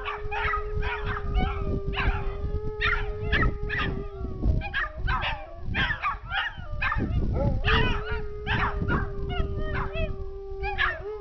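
An Alaskan Malamute howls in two long, steady notes, the first over the opening four seconds or so and the second from about two-thirds of the way in. Two dachshunds join in the whole time with short, higher, yelping howls. The dogs are howling at a siren.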